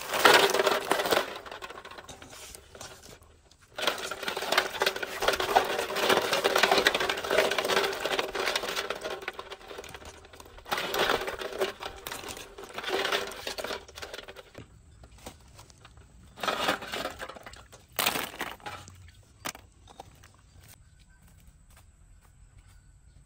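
Water being poured into an aluminium basin, a long splashing pour with a steady ringing tone in it, followed by several shorter splashes and knocks as snails, lemongrass and herbs are dropped into the water against the metal.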